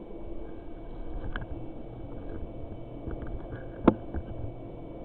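A single sharp shot from a P-ROD air gun about four seconds in, over a steady low background hum, with a fainter click about a second in.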